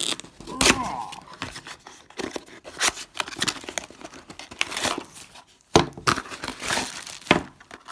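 A small cardboard box torn open roughly by hand: irregular ripping and rustling of cardboard, with plastic packaging crinkling as the contents come out.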